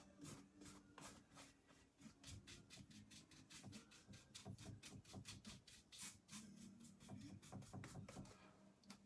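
Paintbrush stroking and scrubbing paint onto a canvas, heard faintly as a quick run of short, scratchy strokes at about three to four a second.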